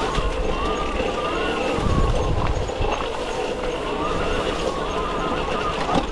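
Arctic Leopard electric trial motorcycle's motor whining, its pitch rising and falling with the throttle, over the rumble and knocks of the bike riding a rough dirt trail, with a louder run of thumps about two seconds in.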